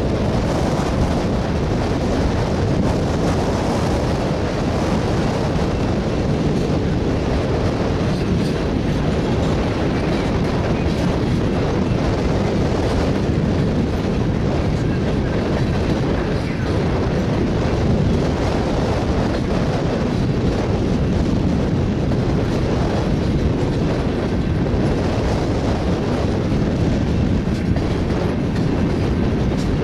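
Freight train of railroad tank cars rolling past, their steel wheels running on the rails with a steady, unbroken noise.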